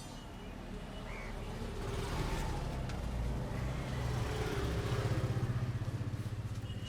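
A motor vehicle's engine, a low pulsing rumble that grows louder over a few seconds and then fades.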